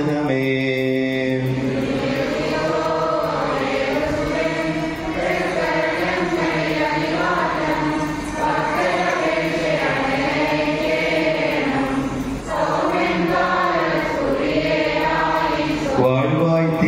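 Liturgical chanting of Malankara Syro-Catholic worship: voices sing a slow melody that bends and wavers. Near the end a steady held tone comes in.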